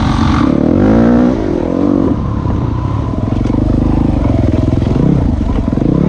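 Enduro dirt bike engine being ridden hard, heard close up from the rider's helmet. The revs rise and fall about a second in and again near the end as the throttle is worked over rough trail.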